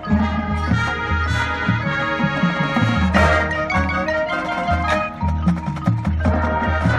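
High school marching band playing, with mallet percussion such as marimba and glockenspiel standing out over rhythmic low bass notes.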